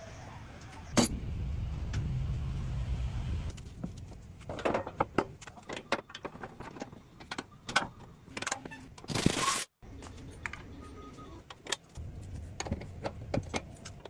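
Workshop handling sounds: a sharp click and a low rumble for a couple of seconds, then a run of irregular metallic clinks and clanks from parts and tools being handled.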